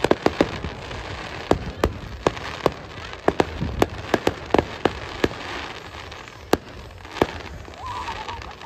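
Aerial fireworks bursting in a rapid, irregular string of sharp bangs and pops, thick through the first half and thinning out toward the end.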